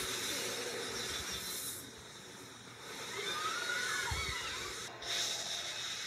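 Anime sound effects of a blast and rushing fire: a steady hissing rush that sinks about two seconds in and surges again suddenly about five seconds in.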